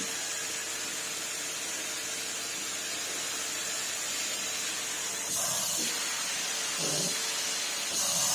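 Numatic Henry vacuum cleaner running with a steady hiss and hum. It gets a little louder about five seconds in and again near the end.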